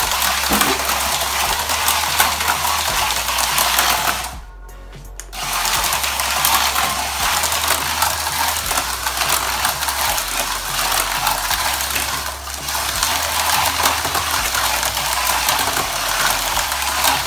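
Small electric motor of a Zoom Tubes RC toy car whirring steadily as it drives through the clear plastic tube track. The whir cuts out for about a second around four seconds in, then starts again.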